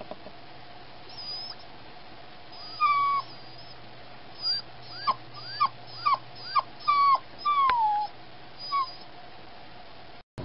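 A freshly spayed puppy whining in her crate: a string of about nine short, high-pitched whines, most rising then dropping, with a longer falling whine near the end.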